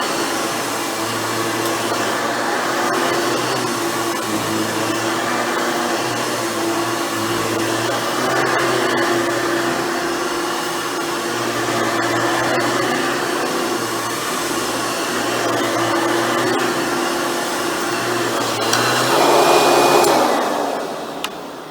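Hoover Futura Dimension upright vacuum running steadily and loud, swelling briefly near the end before it is switched off and the motor winds down, with a sharp click as it stops.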